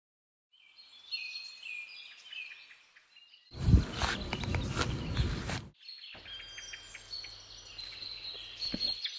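Forest ambience of birds chirping and tweeting. About three seconds in it is cut off by roughly two seconds of loud, noisy rustling and crunching with heavy thumps, the loudest part. Then the birdsong returns over a faint low hum.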